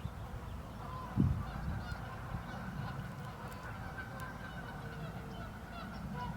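Faint honking of geese, with small bird calls, over a steady low rumble. A dull thump sounds about a second in.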